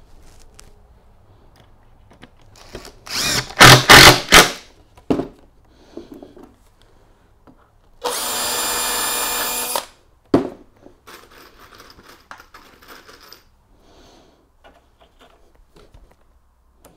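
Cordless drill driving screws through a pine stair tread into its support block: the motor runs steadily for about two seconds. A few seconds earlier come several loud knocks.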